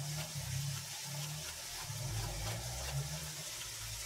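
Minced meat sizzling steadily in a frying pan on a gas hob, with a low hum underneath.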